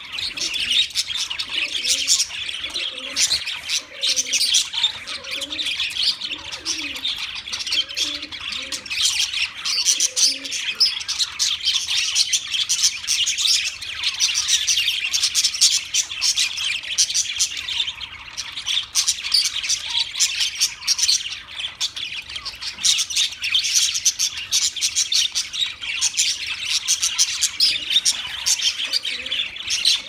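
A flock of budgerigars chattering without a break: dense overlapping chirps, warbles and squawks. Lower calls come through them in the first ten seconds or so.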